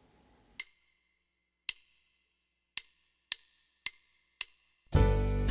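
Percussion count-in of six sharp clicks, two slow then four twice as fast, and then a band comes in playing a song near the end.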